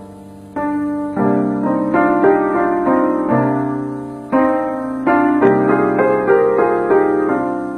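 Slow solo piano music: single notes and chords struck one after another, each left to ring and fade.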